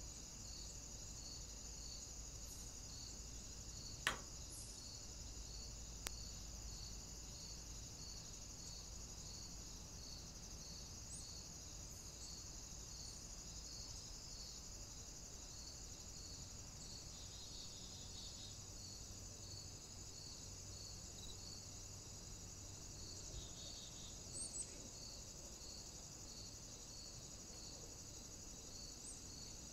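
Steady high insect chirring with a faint regular pulsing about twice a second, and one sharp click about four seconds in.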